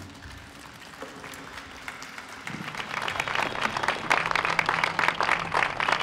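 Audience applause starting thinly and swelling into full clapping from about halfway through, as the music ends.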